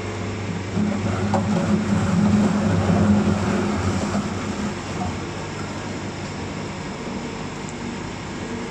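Stainless-steel screw-type juice extractor running, its electric motor driving the auger with a steady mechanical hum. The sound swells for the first four seconds or so while apples are tipped into the hopper and crushed, then settles to a steadier, lower hum.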